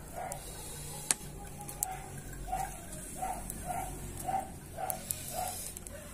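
An animal calling over and over in short, even notes, about two a second and most steadily in the second half, with a few sharp clicks, the loudest about a second in.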